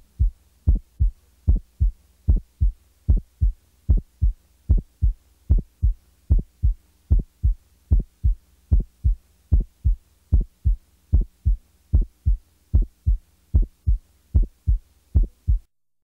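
Human heart sounds recorded through a stethoscope, demonstrating a widely split first heart sound. The mitral and tricuspid closures of the first sound are heard as two separate parts, followed by the second sound, repeating steadily over a faint steady hum. A wide split like this is the sign of the two ventricles contracting out of step, from electrical causes such as right bundle branch block or from mechanical causes.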